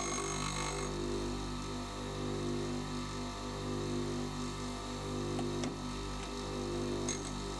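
Bench grinder motor running with a steady electric hum. In the first second there is a light grinding hiss as the endmill's cutting edge is drawn across the wheel. Two faint ticks come in the second half.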